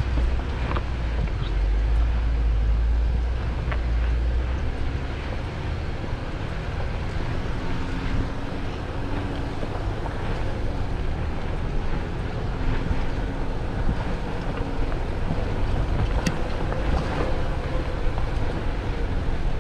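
Steady low rumble with wind noise on the microphone, heaviest in the first few seconds, and scattered light knocks.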